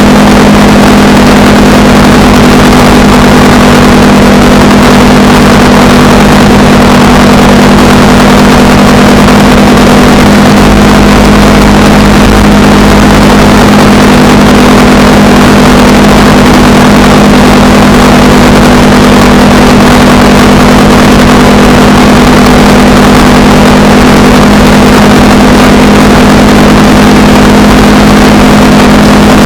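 Honda Rebel 300's single-cylinder engine running at a steady speed on the road, with no revving or gear changes. A loud rush of wind noise runs under the engine note.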